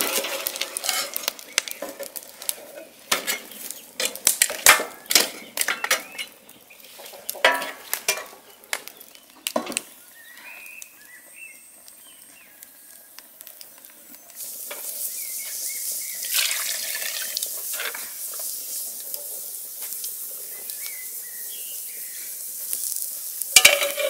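Wood fire crackling and popping in a metal fire box, many sharp pops in quick succession. From about halfway a steady hiss sets in as meat sizzles in an aluminium pot on the fire, with a metal clatter of the pot lid near the end.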